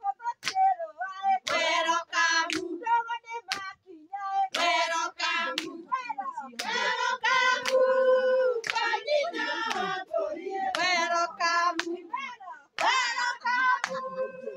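A group of women singing in high voices, phrase after phrase with short breaks, and hands clapping sharply along with them.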